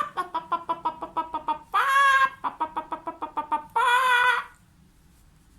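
A hen cackling: rapid clucks broken by three long, drawn-out calls, stopping about four and a half seconds in.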